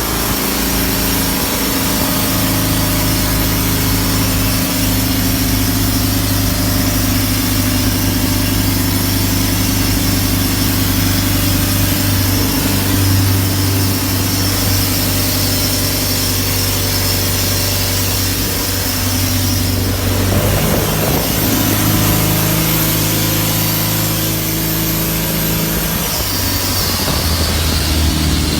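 Isuzu D-Max 3.0-litre four-cylinder turbo-diesel engine fitted in a speedboat, running steadily; its engine speed changes about twenty seconds in and again near the end.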